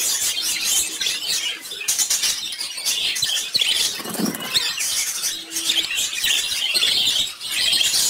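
Lovebirds chattering without a break: a dense run of quick, high-pitched chirps and squeaks.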